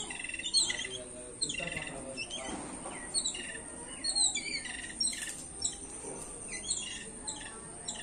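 Small birds chirping: a dozen or so short, high calls, each sliding downward in pitch, coming singly or in quick pairs throughout.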